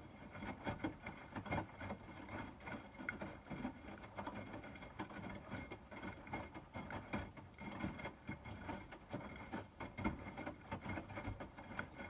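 Hotpoint WMFUG 942 front-loading washing machine drum turning during the wash on a 60° bed & bath programme, wet laundry lifting and dropping with water sloshing in a run of irregular soft thumps and splashes. The machine is heating the wash water toward 60°.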